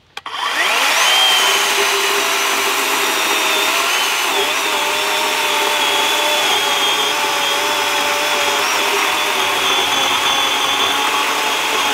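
A Worx battery chainsaw with a 14-inch bar spins up with a rising whine, then cuts through a log: a steady electric-motor whine with the chain rasping through the wood.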